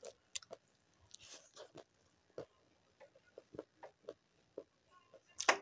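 Close-up eating sounds of a mouthful of rice eaten with the fingers: scattered small wet clicks and smacks of chewing and lips, with one louder smack near the end.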